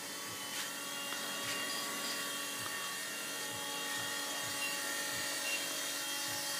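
WLtoys V911 micro RC helicopter in a steady hover, its small electric motors and rotors giving a continuous high whine of several tones that shifts slightly about halfway through.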